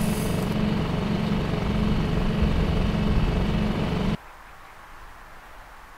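Tohatsu outboard motor running steadily, then cutting off abruptly about four seconds in, leaving a faint quiet hiss.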